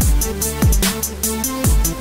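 Electronic music with a heavy beat: deep kick drums that drop in pitch, quick hi-hat ticks and held synth notes.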